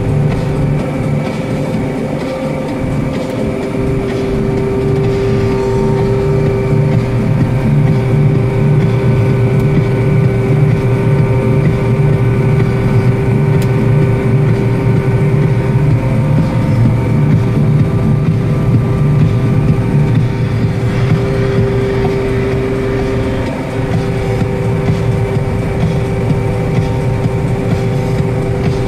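John Deere 9770 combine heard from inside the cab while harvesting soybeans: the diesel engine at about 2300 rpm and the threshing machinery running steadily under load, a low drone with a steady whine over it.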